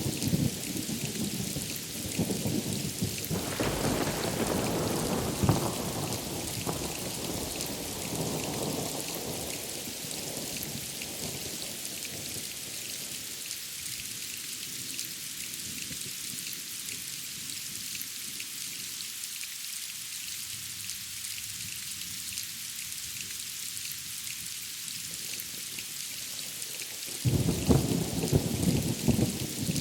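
Steady rain hissing, with rolls of thunder: a rumble swells a few seconds in and dies away slowly, then another loud rumble breaks in suddenly near the end.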